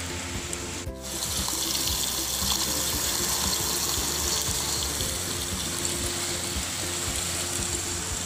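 Food frying in oil in a stainless steel mess tin on a butane camp stove: hotdogs sizzling, then after a short break about a second in, a pork chop sizzling with a steady, louder hiss.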